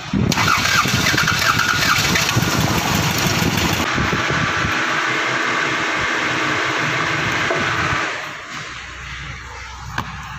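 Toyota Camry 5S four-cylinder engine turned over by its starter motor for a compression test, cranking steadily for about eight seconds and then stopping. A single sharp click follows near the end.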